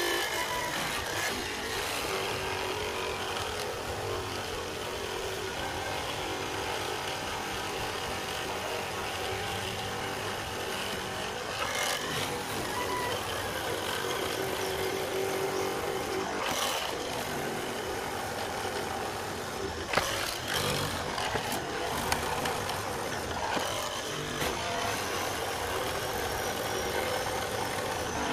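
Leopard hollow-chisel mortising machine running steadily, its square chisel and auger cutting a mortise into a wooden beam, with a few sharp knocks near the middle.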